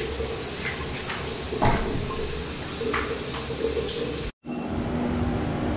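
Shower water running with a steady hiss in a tiled shower room, with a few light knocks, the loudest about a second and a half in. A little past four seconds it cuts off suddenly and gives way to a steady low hum of the room.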